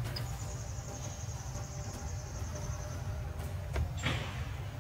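A steady, high, thin insect drone over a constant low rumble, with a short falling squeak about four seconds in.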